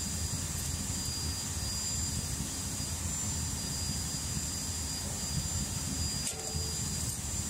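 Steady low roar of a fuel-fired smelting furnace's burner running, with a brief clink near the end as the hot assay crucible is handled for the pour.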